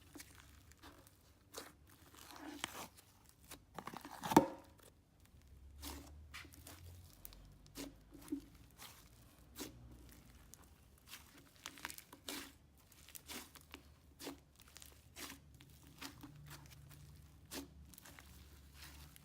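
Slime mixed with tiny foam microbeads being squeezed and worked by hand, giving faint, irregular crackles and little pops, with one louder pop about four seconds in.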